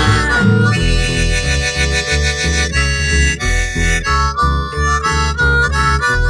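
Instrumental break in a blues-rock song: a lead melody of held, slightly bending notes over a steady, pulsing bass beat.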